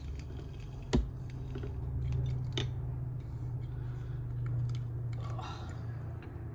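A lime being squeezed for its juice, with small wet squishing and clicks. There is one sharp knock about a second in, and a low steady hum underneath.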